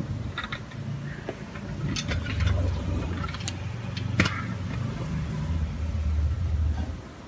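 1:38 diecast toy excavator truck rolled by hand across a tabletop: low rumbling in several stretches, broken by a few sharp clicks and knocks of the toy being handled.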